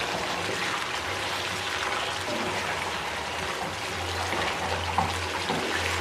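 Beef pieces simmering in thick spiced broth in a frying pan, with a steady bubbling and trickling sound as a wooden spatula stirs through them.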